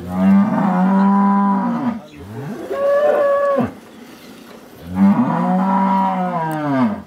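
A cow mooing three times: two long calls with a shorter one between them, the long calls dropping in pitch as they end.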